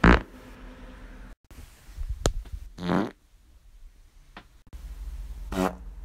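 A string of short human farts, one after another. The loudest comes right at the start; pitched ones follow about three seconds in and near the end, with a couple of shorter ones between.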